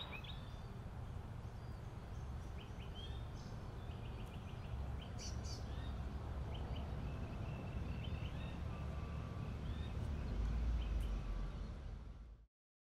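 Outdoor ambience: small birds chirping intermittently over a steady low rumble that swells slightly near the end, then cuts off abruptly.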